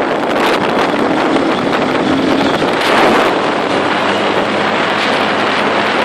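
Heavy wind buffeting the microphone of a dirt bike being ridden on a gravel road, with the motorcycle's engine running steadily underneath.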